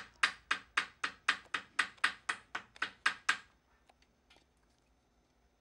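Small shoemaker's hammer tapping a women's shoe heel held on an iron shoe last, about four even strikes a second. The strikes stop about three and a half seconds in, and a couple of faint clicks follow as the shoe is handled.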